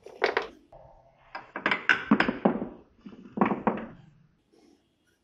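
Three short bursts of rapid clicking and knocking, from a ratcheting screwdriver being worked on the bolts of a motorcycle's seat bracket, with metal parts handled between the strokes.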